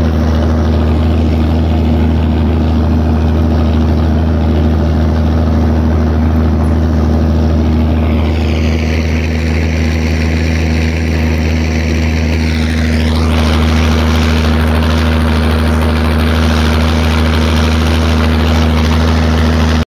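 Zetor tractor's diesel engine running steadily under load while pulling a mounted plough through the soil, heard from inside the cab.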